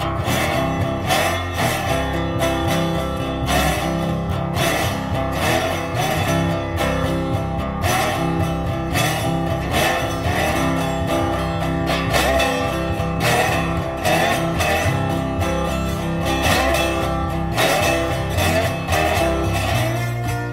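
Background music: guitar playing, plucked and strummed, with a steady rhythm.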